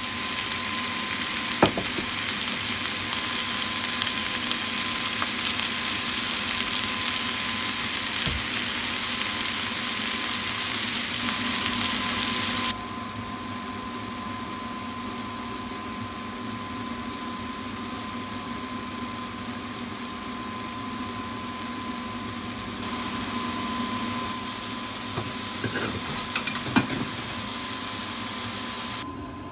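Vegetables sizzling as they stir-fry in a nonstick frying pan: squash strips and onion, then mushrooms, with a steady high tone underneath. The sizzle drops quieter about halfway through and picks up again for the last few seconds, with a couple of sharp clicks near the end.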